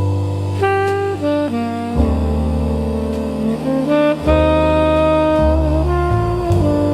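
Slow jazz background music: a saxophone plays a melody of held notes over a low bass line.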